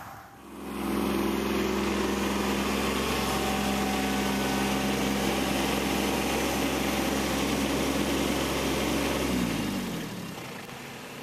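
Kubota B2601 compact tractor's three-cylinder diesel engine running at a steady speed. Near the end its pitch falls and the sound fades as the engine slows down.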